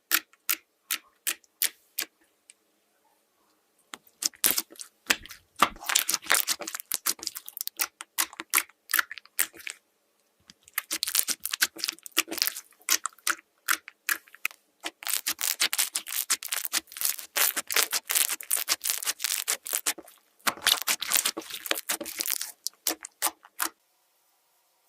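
Slime being squeezed and pressed, making sticky clicks and crackling pops. A few separate clicks come first, then dense crackling in runs of several seconds with short pauses between.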